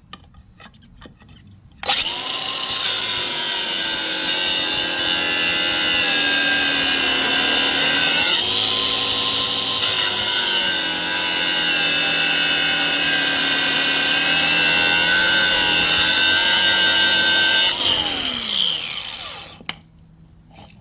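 Electric power cutting tool running at speed as it cuts a groove into the old wheel bearing race on the hub, a steady high whine that sags in pitch when pressed in about eight seconds in, then winds down with a falling pitch near the end when released.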